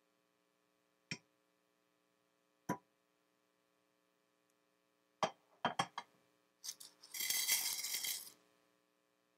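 Stainless steel cookware clinking a few times, then dry lotus seeds rattling as they are poured into a steel pan for about a second and a half, over a faint steady hum.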